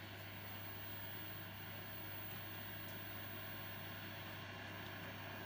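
Steady low mains hum with a faint hiss from a 1966 Philco valve television switched on and warming up, its filaments lit.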